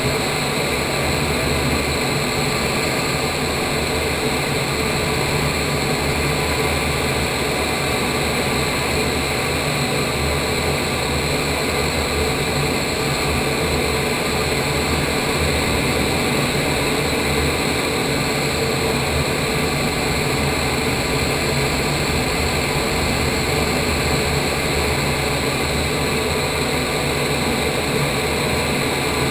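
Steady, loud rush of air from an indoor vertical wind tunnel running at flying speed, heard inside the flight chamber, with a steady hum under it.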